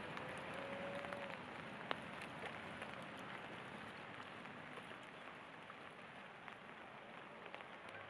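Steady rain falling, with scattered drops ticking and one sharper drop about two seconds in. A faint held tone that rises slightly sounds in the first second or so.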